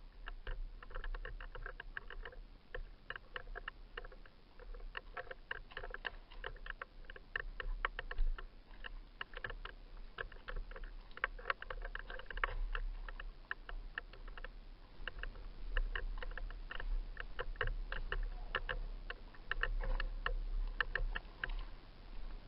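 Dense, irregular crackling clicks over a steady low rumble: the movement and handling noise of a camera carried by a player on the move.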